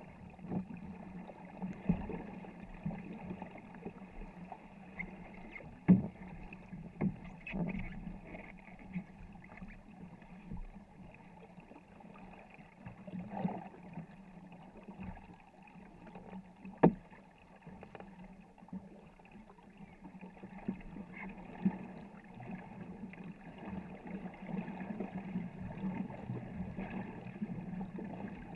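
A war canoe being paddled hard: water rushing and splashing along the hull in the pulse of the paddle strokes. There are a few sharp knocks, the loudest about six and seventeen seconds in.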